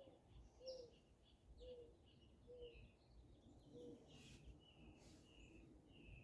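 Faint birds chirping in a quiet room: a string of short high chirps with lower short notes about once a second.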